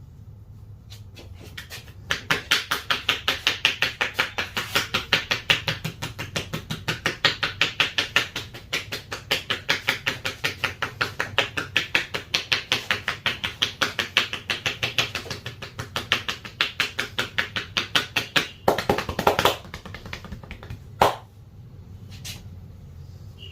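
A massaging barber's hands striking in a fast, even percussive massage, about five slaps a second, starting about two seconds in. The strikes bunch together briefly before stopping, and a single sharp click follows a little later.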